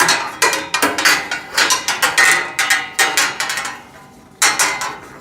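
Rack frame parts and support pieces being handled and fitted together, giving a quick run of sharp knocks and clinks, a brief pause, then another short cluster near the end.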